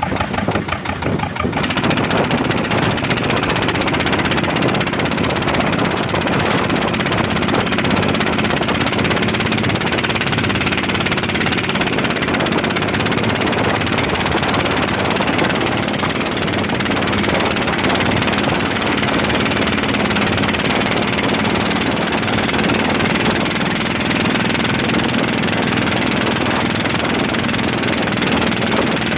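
Inboard engine of a wooden pompong racing boat running at high speed in a speed trial, a loud steady drone. Its separate firing beats are heard for about the first second and a half, then blur together as it speeds up.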